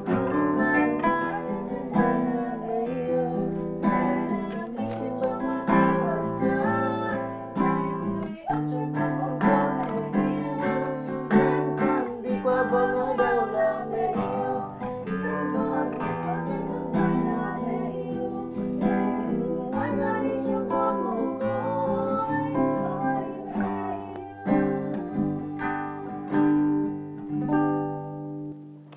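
A man singing a song to his own acoustic guitar accompaniment, strummed chords under the melody; the song ends just before the close.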